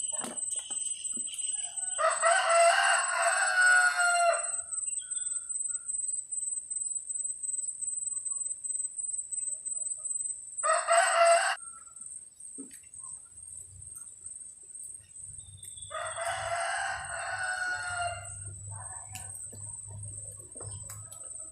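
Rooster crowing three times: two long crows and a shorter one in between. A steady high-pitched whine runs underneath.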